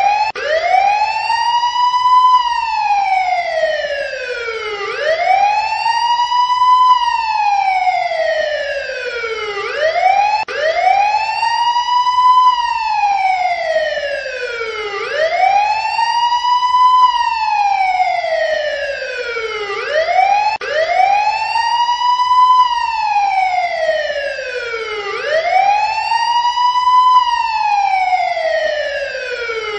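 Emergency-vehicle siren in its wail mode: a loud tone that rises slowly and falls again, each up-and-down sweep about five seconds long, repeating about six times.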